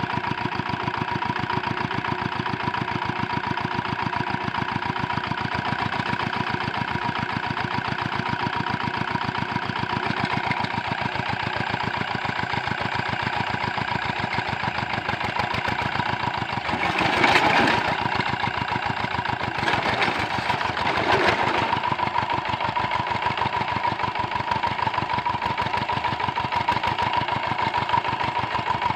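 Single-cylinder diesel engine of a walk-behind paddy-field tractor running steadily at idle, with fast, even firing knocks. About halfway through there is a brief louder noisy stretch, with a couple of smaller ones soon after.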